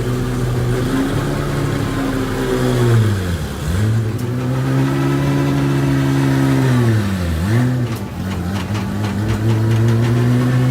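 An engine running at a steady speed, its pitch dropping sharply and coming back up twice, about a third and two thirds of the way through.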